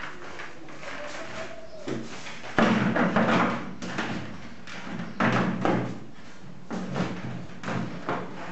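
Hard plastic parts of a square plastic promotional stand knocking and rattling as its plastic top tray is set onto the frame and pressed into place. There are several sharp clattering knocks, the first about two and a half seconds in, then more around the middle and near the end.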